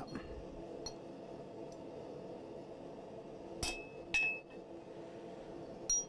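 Hand hammer striking a centre punch into a 3/8-inch round steel bar on the anvil, marking the bar. There are two sharp metallic strikes about half a second apart, each ringing briefly, then a lighter clink near the end.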